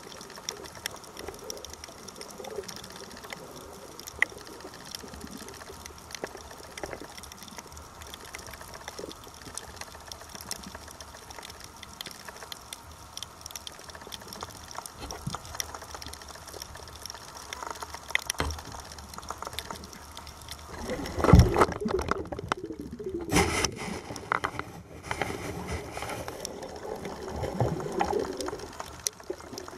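Underwater sound picked up through a camera housing: a steady crackle of many fine clicks, then, from about two-thirds of the way in, louder irregular gushing bursts of water and bubbles.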